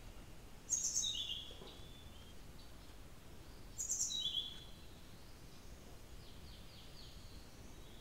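Blue-throated flycatcher calling: two short phrases of thin, high notes, about a second in and again about four seconds in, then a few faint notes near the end, over a steady hiss.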